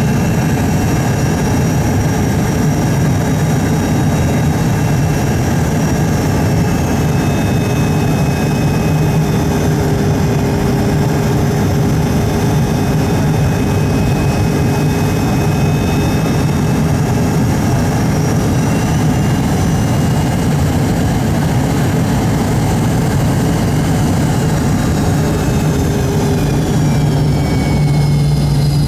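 Steady jet engine and airflow noise heard inside the cabin of a rear-engined, T-tail twinjet airliner on final approach with its flaps extended. A low hum runs under it, and a few high whines slide down in pitch near the end.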